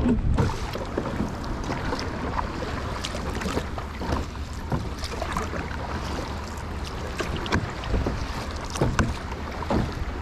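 Kayak paddling on the sea: irregular splashes and drips of the paddle blades in the water and water slapping against the hull, over a steady rumble of wind on the microphone.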